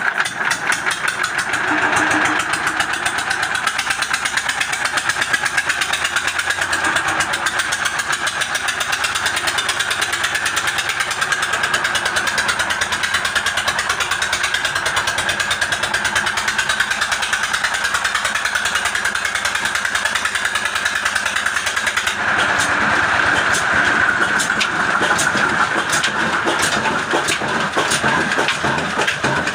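Desi 'Kala' diesel oil engine of the Ruston type, single-cylinder and about 10 horsepower, running steadily with a rapid, even beat. The sound shifts about 22 seconds in, turning brighter and thinner at the bottom.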